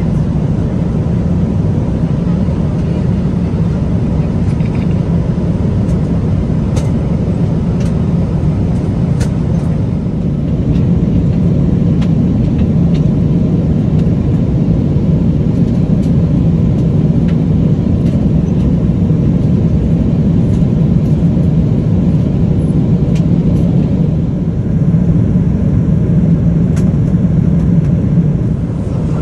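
Steady cabin noise of a Boeing 777-300ER in flight, heard from an economy window seat: a low rumble of airflow and engine noise, a little louder from about ten seconds in, with a few faint clicks.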